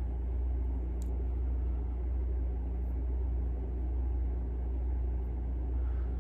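Steady low background rumble with a faint hum, and one faint click about a second in.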